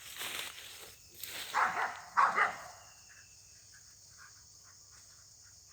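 Dogs barking a few times, then falling quiet with faint chirping in the background.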